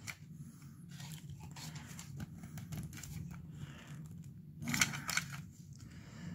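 Plastic battery shell and circuit board being handled and pushed together: faint scraping and rattling of plastic parts, with a short louder burst of clicks about five seconds in as the tight-fitting board is worked into the case.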